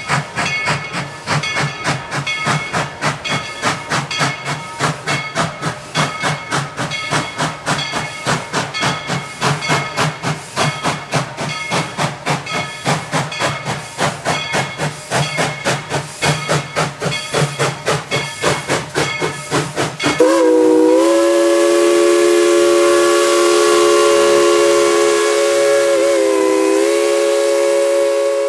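Tweetsie Railroad steam locomotive No. 190 working, its exhaust chuffing in a steady beat of about two to three a second. About twenty seconds in it sounds one long, hissing whistle blast whose pitch dips briefly twice.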